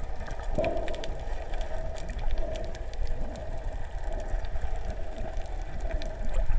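Underwater sound on a reef, heard through a submerged camera: a low rumble of moving water with many scattered crackling clicks and a faint steady hum, and one louder clunk about half a second in.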